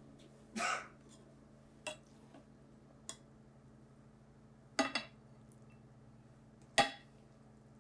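Serving utensil clinking and scraping against a pan and dish while food is dished up: a short scrape about half a second in, a couple of light ticks, then louder clinks around five seconds and again near seven seconds. A faint steady hum runs underneath.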